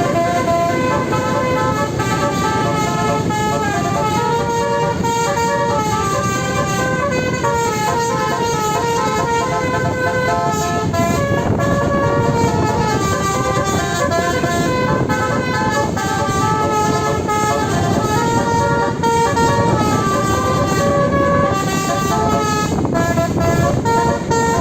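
Indonesian bus 'telolet' horn, a multi-tone musical air horn, playing a tune of tooting notes that step up and down in pitch, over steady vehicle noise.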